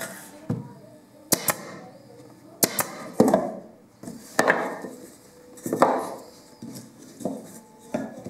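Irregular sharp knocks and taps of wood on wood, about ten, some in quick pairs, each with a short ringing tail, as pine door-frame pieces are worked on a wooden workbench.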